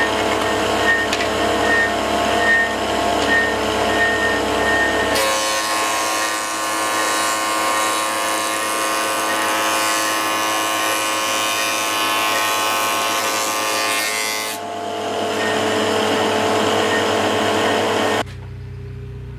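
An electric power tool running steadily with a pitched hum, its tone changing abruptly twice and cutting off suddenly near the end.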